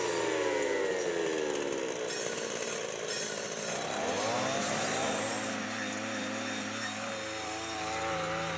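Chainsaw running: its engine note drops over the first couple of seconds, climbs again about four seconds in, then holds steady.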